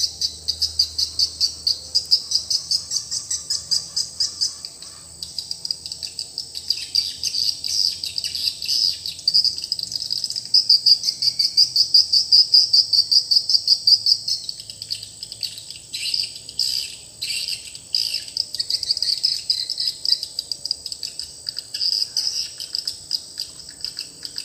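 Swiftlet call recording played through speakers: rapid high-pitched chirping pulses, several a second, with a thin steady high tone under them.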